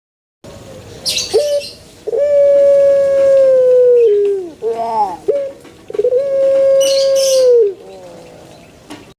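A puter pelung, a long-cooing collared dove, cooing: two long drawn-out coos, each held on one steady pitch for about two seconds and ending in a short falling note, with a few short falling coos between them.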